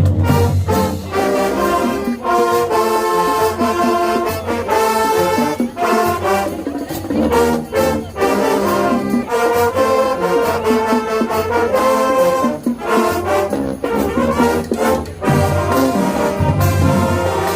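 High school marching band playing, led by brass (trombones and trumpets) in loud sustained chords and phrases over drums.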